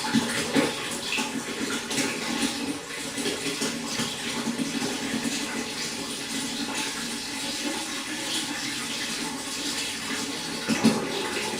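Pond water splashing and trickling steadily, a constant run of small splashes with a couple of louder ones near the start and near the end.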